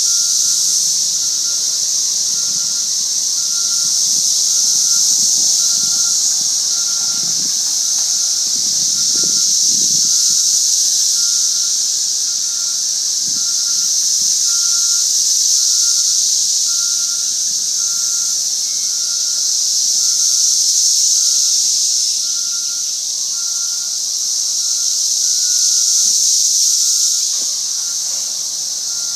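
Dense chorus of cicadas buzzing, a loud high-pitched drone that slowly swells and fades every few seconds. A fainter short tone repeats about once a second underneath.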